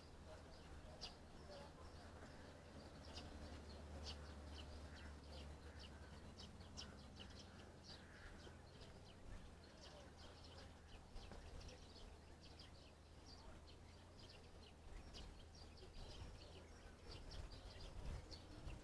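Faint lakeside ambience: small birds chirping in short, repeated calls over a steady low rumble, with a few soft knocks near the end.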